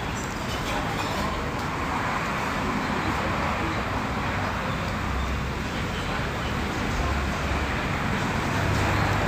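Steady road traffic noise, with a low rumble growing near the end as a vehicle comes closer.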